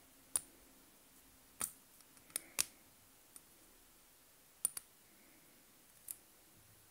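Wristwatch being handled: about eight sharp, light clicks at irregular intervals, two pairs of them in quick succession.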